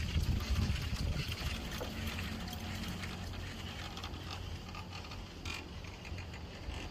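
Wind buffeting the microphone of a moving chair lift, dying down over the first few seconds. Underneath is a steady high chirring of insects.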